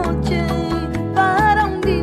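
Flamenco-pop music: plucked guitar over a pulsing bass and steady percussion, with a wavering, gliding melody line above.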